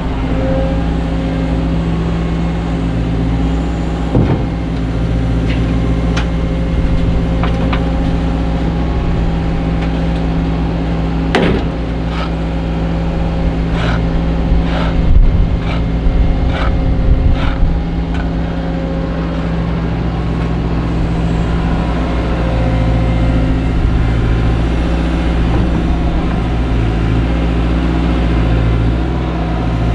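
The diesel engine of a CAT M314F wheeled excavator running steadily under load as its hydraulic boom works over a tipping trailer. Sharp metallic knocks come twice in the first half, then a quick cluster of them in the middle as the bucket meets the trailer's side.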